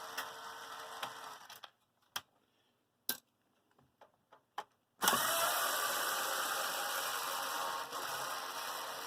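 Electric screwdriver running as it drives out small casing screws. It stops after about a second and a half, a few light clicks follow, then it starts again about five seconds in and runs on steadily.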